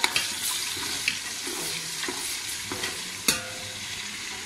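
Chopped onions sizzling and crackling in hot oil in a steel pot, a steady hiss with many small pops. A single sharp knock about three seconds in.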